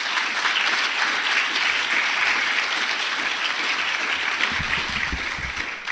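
Audience applauding, many people clapping steadily; the clapping dies away near the end.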